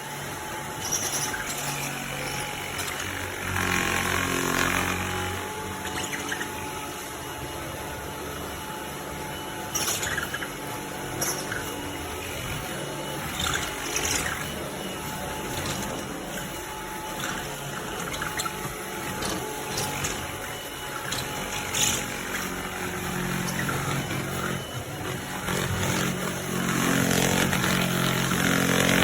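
Cordless stick vacuum motor running steadily, with scattered short ticks and clicks as debris is drawn in. It gets louder near the end.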